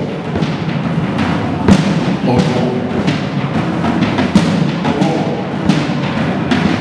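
Live band music driven by an acoustic drum kit: steady drum hits with repeated cymbal crashes every second or so, and short pitched passages over them.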